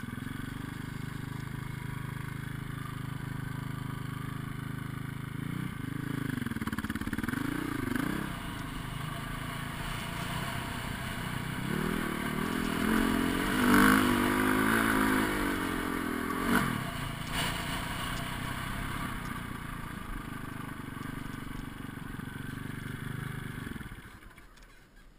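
Dirt bike engine running while ridden off-road, the revs rising and falling, higher and louder while climbing a steep sand hill in the middle. Near the end the engine sound drops away abruptly.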